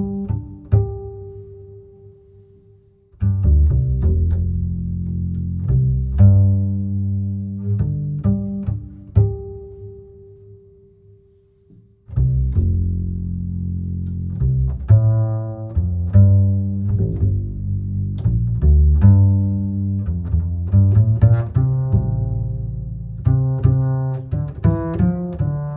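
Instrumental music of deep plucked and bowed bass notes with a ringing tone. It dies away twice and starts up again each time.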